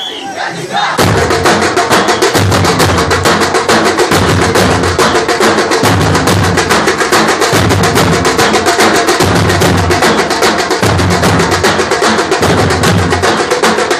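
A band of large drums playing together: rapid, dense beating with heavy low drum strokes under it, coming in loud about a second in.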